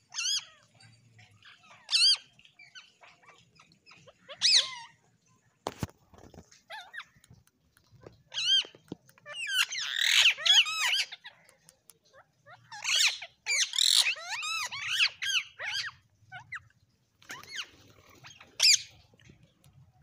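Rose-ringed (Indian ringneck) parakeets calling: short, high-pitched screeching calls in scattered bursts, thickening into overlapping calls from several birds around the middle and again a few seconds later. A single sharp click sounds about six seconds in.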